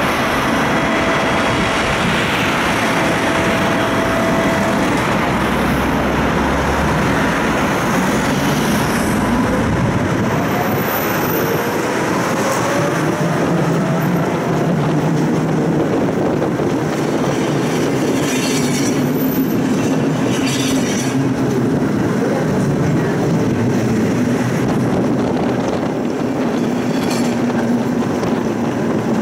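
Electric tram running along its rails, heard from inside the car: a steady rolling rumble with some clicks from the wheels over the track and a faint rising whine about ten seconds in.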